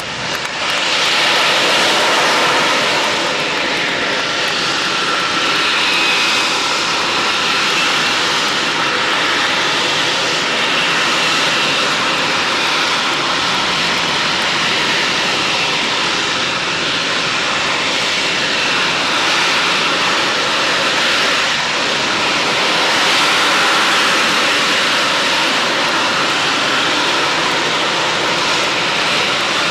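Harrier jump jet's Rolls-Royce Pegasus turbofan at high power, hovering on vectored thrust and then moving into forward flight. The jet noise is loud and steady, with a high whine over it.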